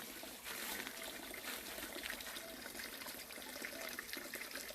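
Small valley stream trickling and splashing steadily.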